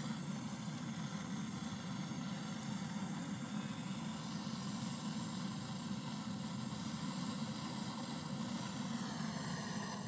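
Portable butane gas torch burning steadily with an even rushing hiss while it heats a copper pipe joint on a refrigerator condenser for brazing.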